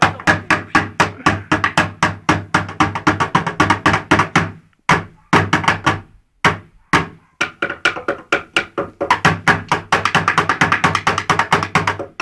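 Wooden drumsticks beating fast drum rolls and rhythms on an upturned plastic bucket used as a makeshift drum, each hit a hollow thud. Two short breaks come about five and seven seconds in, and the strokes are quickest near the end.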